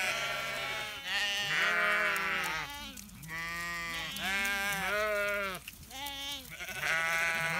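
A flock of sheep and lambs bleating, one call after another with several overlapping, about eight calls in all.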